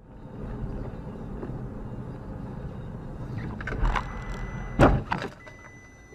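Car-to-car collision heard from inside a moving car: steady engine and road noise, then a loud bang just under five seconds in with a second, smaller knock right after. A high electronic beep sounds on and off afterwards.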